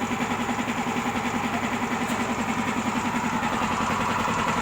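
Air compressor driven by a newly rewound 1.5 hp electric motor, running steadily with a fast, even pulse.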